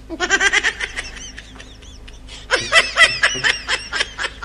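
High-pitched laughter in quick, repeated bursts: a short run right at the start and a longer, louder run from about two and a half seconds in.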